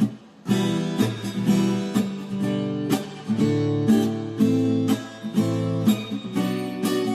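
Acoustic guitar strumming chords, starting about half a second in and going on in a steady rhythm with a louder accented stroke about once a second.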